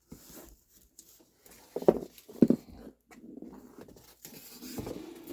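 Cardboard target box being handled and shifted, with soft rustling and two dull thumps about two seconds in.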